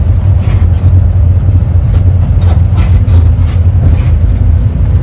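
Steady low rumble of a moving road vehicle heard from inside its cabin: road and engine noise at highway speed.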